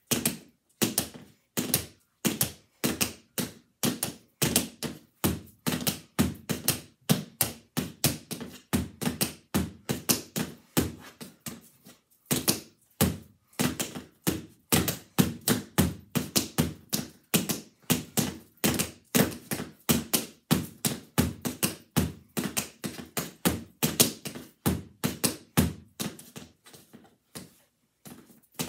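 Tap dancing: the metal taps of tap shoes striking a tap board in fast, rhythmic runs of sharp clicks and heel thunks, with a short break about twelve seconds in and a pause near the end.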